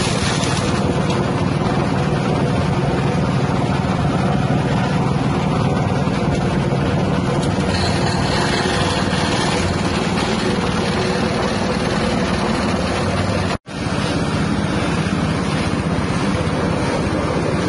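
Grass chopper driven by a 6.5 hp petrol engine, running steadily at speed while its blades shred grass. The sound breaks off very briefly about three-quarters of the way through, then the same steady running resumes.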